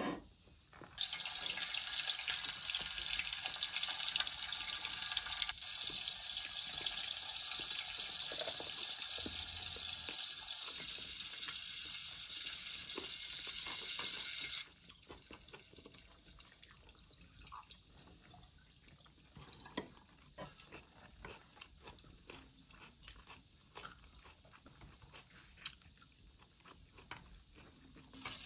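Water running steadily for about fourteen seconds, then cut off suddenly, followed by faint scattered clicks.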